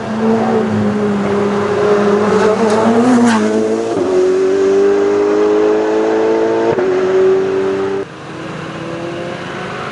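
Race car engine at full throttle accelerating up through the gears. The pitch climbs, then drops sharply at an upshift about four seconds in and again near seven seconds. About eight seconds in the sound suddenly gets quieter.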